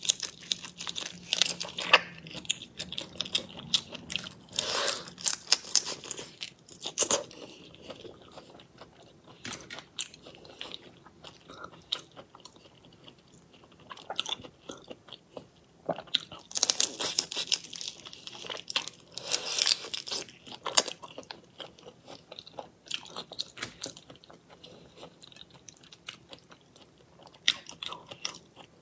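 Eating raw marinated prawns: shells crunching, biting and chewing in irregular clusters, loudest near the start and again in the middle, with quieter chewing between.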